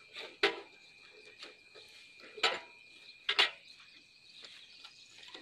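Insects chirping steadily, with a few sharp clinks as hands work on a small hand-tractor engine, the loudest about two and a half and three and a half seconds in.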